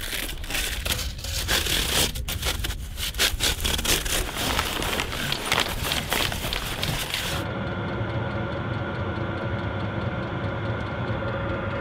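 Crinkling and scraping of a flexible aluminium foil duct and tent fabric being handled, over the low steady running of a portable diesel heater. About seven and a half seconds in the handling noise stops sharply, leaving the heater's steady hum of several even tones as its fan blows hot air through the duct.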